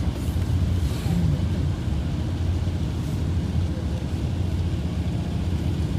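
Steady low rumble of a muddy mountain torrent in flood, rushing down a rocky channel.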